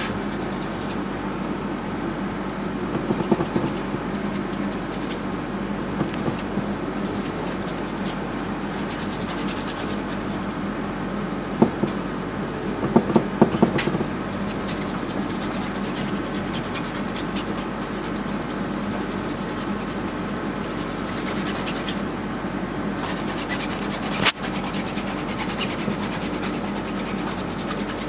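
Oil paint being scraped and rubbed onto a stretched canvas, soft scratchy strokes that come and go, busiest about 3 s and 11 to 14 s in, with one sharp click about 24 s in. A steady room hum runs under it.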